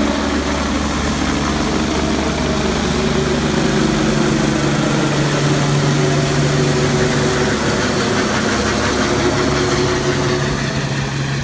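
Medical helicopter's turbine engine and rotor running steadily as it flies away after lifting off, the pitch drifting slightly lower.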